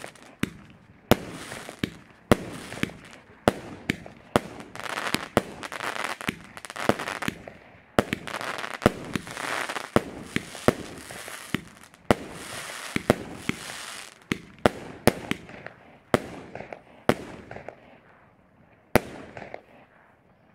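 A consumer firework battery firing shot after shot into the air: sharp bangs about one or two a second, with a rushing crackle between them as the stars burn. The shots thin out and stop after a last loud bang near the end.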